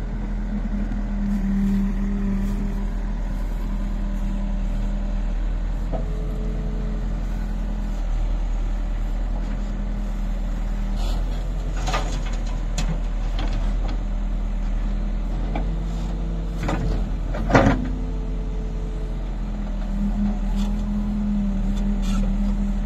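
Backhoe loader's diesel engine running under hydraulic load, its pitch dropping and rising every few seconds as the arm digs and swings. Several sharp metal clanks come from the bucket and from soil dumped into a steel tractor trolley, the loudest a little after the middle.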